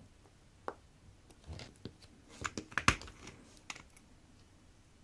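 Small, irregular clicks and taps of watchmaker's hand tools against a chronograph watch movement and its metal movement holder, with a quick cluster of sharper clicks about two to three seconds in.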